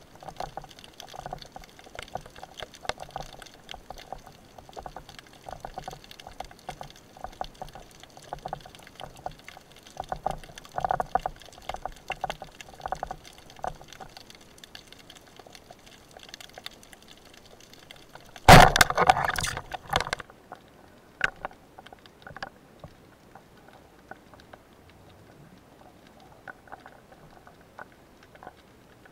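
Underwater sound heard through a camera's waterproof housing: a constant crackle of small clicks with soft swishes of moving water. About two-thirds through, a loud rush of water lasts about a second and a half, after which the background is quieter.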